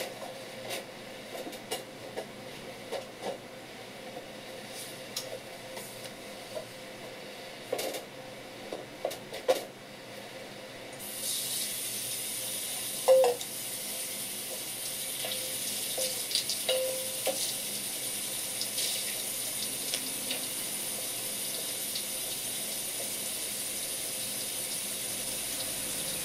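A few light clicks and knocks, then about eleven seconds in a kitchen tap starts running steadily, its water splashing into a stainless steel bowl and over a wet wooden cutting board. A sharp knock sounds shortly after the water starts.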